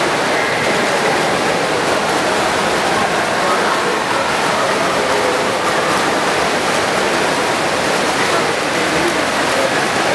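Steady wash of splashing from freestyle swimmers, echoing in an indoor pool hall, with faint voices underneath.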